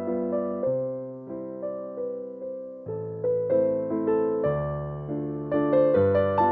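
Background music: a gentle piano melody of struck notes that each fade after they are played.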